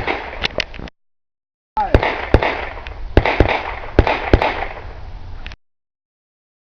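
Chiappa M-Four .22 LR semi-automatic rifle firing a string of about ten sharp shots, in quick pairs and singles, on a shooting stage. The sound cuts out abruptly twice: about a second in and again after five and a half seconds.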